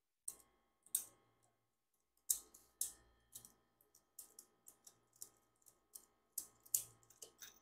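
Irregular light clicks and taps of small metal tools and parts being handled, spread out every half second or so, as a homemade cylinder-boring rig is taken apart.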